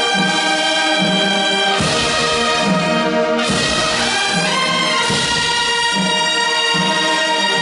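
Wind band of flutes, clarinets, saxophones and brass playing sustained chords that change about every second or so, over a steady bass line.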